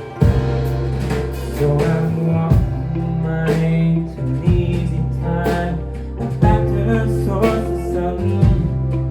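Live band playing a song with guitar, bass and drum kit keeping a steady beat, and a singing voice over it.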